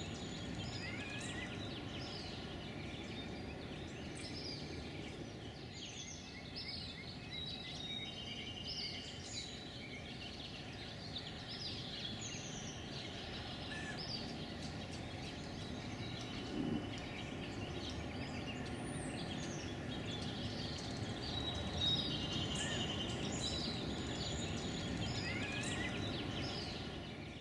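Outdoor ambience of small birds singing: many short chirps, whistled glides and quick trills, over a steady low background rumble.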